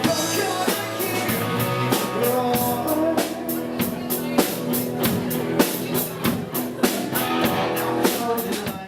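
Rock band playing: drum kit with steady, frequent hits over guitar and bass. The music stops abruptly at the very end.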